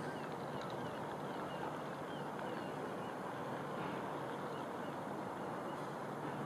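Distant CrossCountry Voyager diesel multiple unit approaching, a steady low engine and rail rumble that holds level, with faint bird chirps over it.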